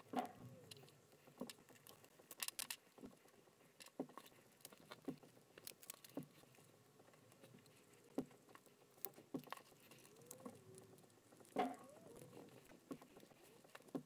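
Faint, scattered clicks and small taps of a precision screwdriver on tiny screws and fingers handling the metal chassis of a Sony MZ-N707 MiniDisc Walkman as its lid is screwed back on. The loudest clicks come just after the start and about eleven and a half seconds in.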